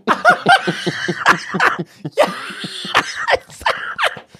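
Two men laughing hard, in a run of short, choppy bursts of laughter with breathy gasps between them.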